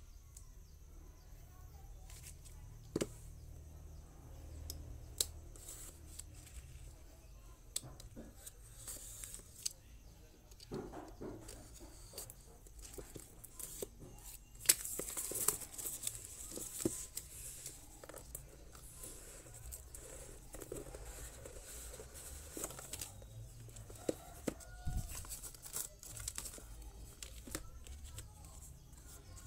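Unboxing a smartphone's retail box: a utility knife slitting the box's wrapping and the plastic being torn off, with a louder stretch of tearing and rustling about halfway through. Scattered taps and clicks of cardboard being handled run throughout.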